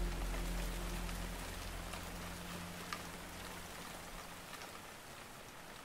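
Steady rain with scattered faint drop ticks, while the last low notes of soft music fade away over the first couple of seconds.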